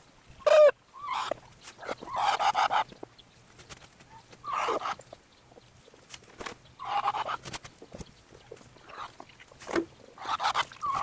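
Backyard hens calling in short, separate clucks and squawks every second or two. The loudest is a brief squawk about half a second in.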